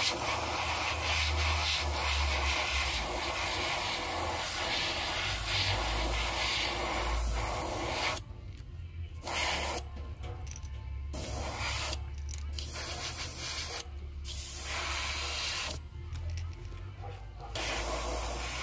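Airbrush spraying a white base coat: a continuous hiss of air and paint for the first half, then cut into shorter spells by several pauses of about a second as the trigger is let off and pressed again. A low hum runs beneath.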